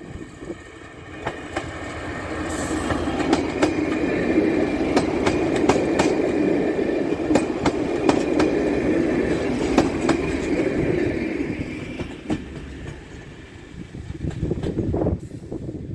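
Class 117 diesel multiple unit passing close by: the underfloor diesel engines and running gear grow louder, peak as the carriages go past and fade away, with many sharp clicks from the wheels on the track.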